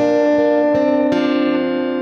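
Acoustic guitar with a capo played fingerstyle: plucked melody notes ringing over one another, with new notes picked about three-quarters of a second in and again just after a second.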